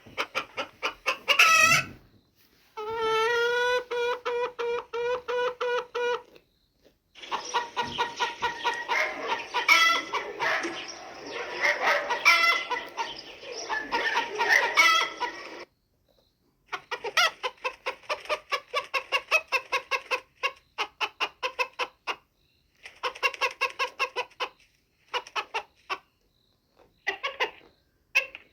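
Hens clucking in rapid runs of short repeated calls, heard as several separate stretches that stop abruptly, with brief silences between them. One stretch, about three seconds in, is a steady series of evenly pitched notes.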